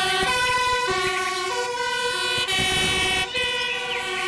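Toy fire engine's electronic two-tone siren, alternating between a high and a low note about every three-quarters of a second.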